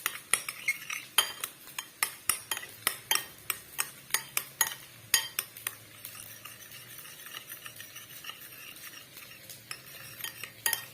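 Two raw eggs being beaten in a bowl with a utensil: quick, repeated clicking taps against the bowl, several a second, louder over the first half and softer later, with a brief louder run near the end.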